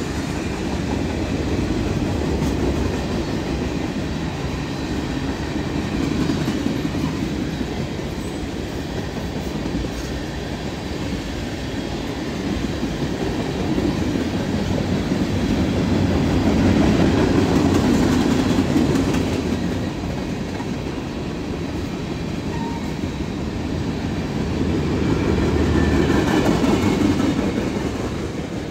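Freight train cars (tank cars, boxcars and autoracks) rolling past, a steady rumble of steel wheels on rail that swells and eases, loudest about two-thirds of the way through and again near the end.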